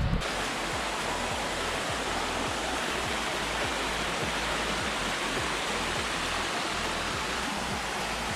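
Steady rushing of flowing water, like a stream or small waterfall, holding an even level throughout.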